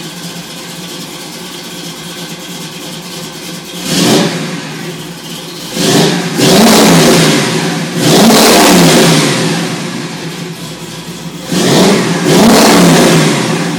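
Chevrolet 350 small-block V8 in a pro-street S-10 pickup idling, then blipped once about four seconds in and revved three times to about 4500 rpm, each rev held a second or two before dropping back to idle. The engine's gear drive is slightly audible in the revs.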